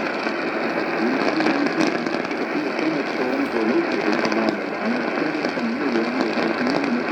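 AM radio reception full of hissing static, with a voice wavering faintly through it and a few sharp crackles.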